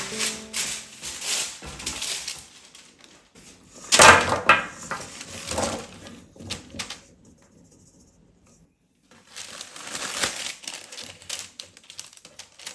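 Irregular crunching and rustling handling sounds in bursts, loudest about four seconds in, with a short quiet pause past the middle.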